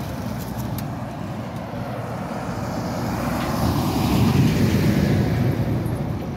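Rumbling wind and road noise from riding a bicycle along a wet road, with a vehicle passing about four seconds in, its sound swelling and then fading.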